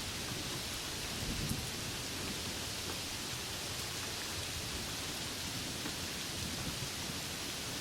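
Steady rain with a low rumble of distant thunder underneath, swelling briefly about a second and a half in.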